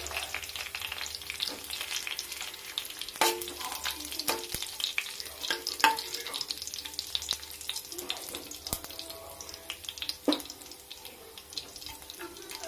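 Cumin seeds and a cinnamon stick sizzling and crackling in hot oil in a kadhai: the cumin has begun to splutter, the tempering (tadka) stage. A metal spoon stirs through the seeds and clinks against the pan a few times.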